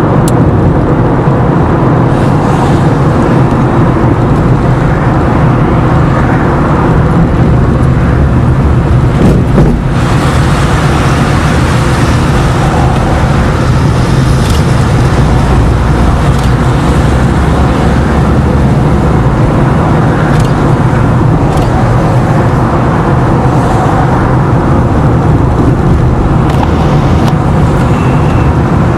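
A car driving steadily at road speed: a continuous engine and tyre rumble, with a brief knock just under ten seconds in.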